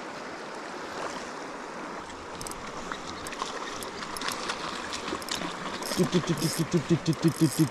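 Rushing river water runs steadily, with scattered light crackling and splashing. From about six seconds in a fast, regular run of short pitched pulses, about five a second, rises over it and is the loudest sound.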